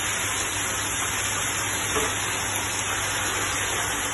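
Steady hiss and low hum of a commercial kitchen's extractor hood running while diced venison is tipped into a hot tilting braising pan to sear; a brief soft knock about two seconds in.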